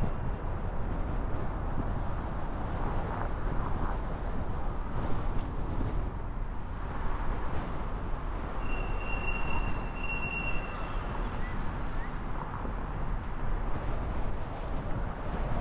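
Steady road noise from a car driving through city streets: a continuous low rumble of tyres and traffic. A thin, high whistling tone sounds for about two seconds near the middle.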